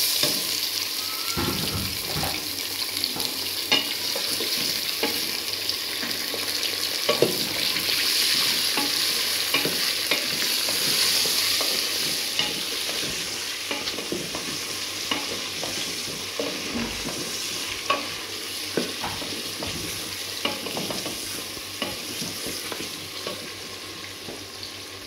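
Mutton pieces sizzling as they fry in hot oil with browned onions in a pressure cooker, being browned (bhuna) while a wooden spoon stirs and knocks against the pot. The sizzle jumps up as the meat goes in and slowly dies down toward the end.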